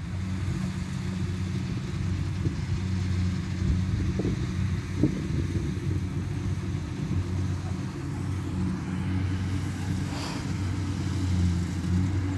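Kubota DC70 combine harvester's diesel engine running steadily under load while it harvests rice, a continuous low drone with a few faint clicks about four and five seconds in.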